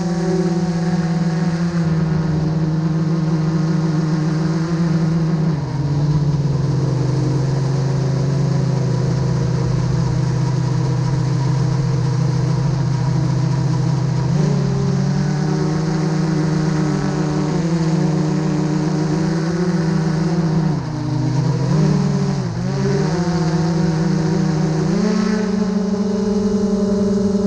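GoPro Karma quadcopter's electric motors and propellers whining loud and close, heard from the drone's own camera. The pitch drops about six seconds in, climbs again around fourteen seconds, wavers up and down a couple of times past the twenty-second mark and rises again near the end.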